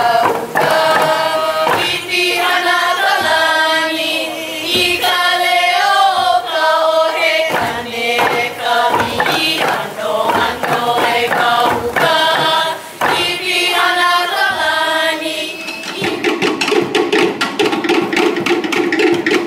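A group of voices chanting in unison while bamboo stamping tubes (kā'eke'eke) are struck on the floor in a steady beat, a low knock every second or so. About 16 s in this gives way to fast, even drumming from a Polynesian drum ensemble.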